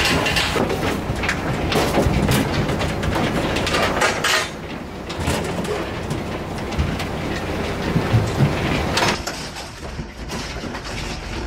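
Rattling and knocking of a livestock truck's metal pens, gates and ramp: a continuous metallic clatter made up of many small knocks.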